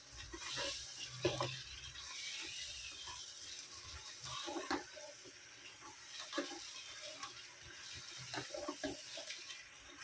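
Chicken and potato pieces in masala sizzling in a pot while being stirred with a slotted spatula, with several soft knocks and scrapes of the spatula against the pot.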